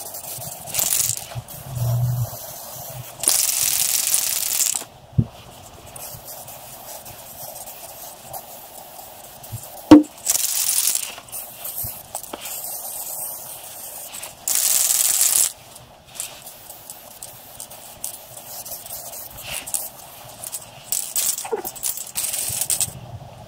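Aerosol spray can of paint hissing in short bursts of about a second, several times over, with small rattling clicks from the can between sprays and one sharp click about ten seconds in.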